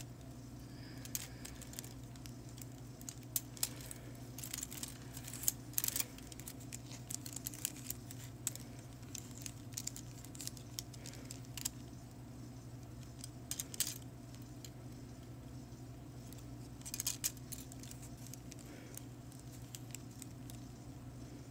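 Faint, irregular light clicks and taps of acrylic nail swatching: brush, dappen dish and plastic swatch tips being handled, with small clusters of clicks now and then. A steady low hum runs underneath.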